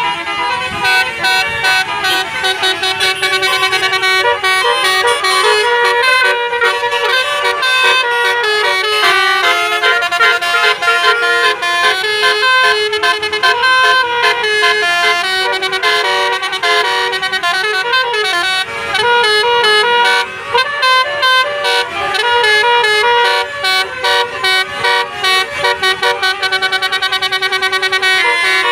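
Indonesian bus 'telolet' horn: a set of air horns playing tunes. Several horn tones sound together and step up and down in pitch in quick, rhythmic runs of short notes.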